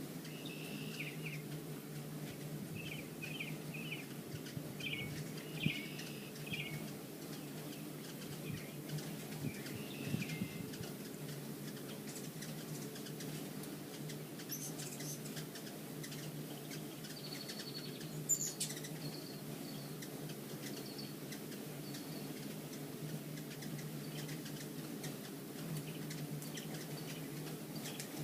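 Hummingbirds chirping in short runs of notes over a steady low hum, with higher squeaky notes midway.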